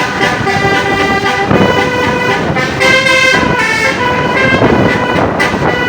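Multi-tone 'telolet' bus horn playing a tune, its notes changing pitch in steps every fraction of a second.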